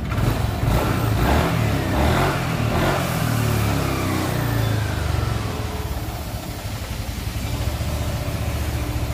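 Yamaha NMAX scooter's single-cylinder four-stroke engine running, revved in short blips over the first few seconds and then settling back toward idle. It is the engine being checked for an intermittent 'klotok-klotok' knock, which the mechanic suspects comes from a loose magneto rotor.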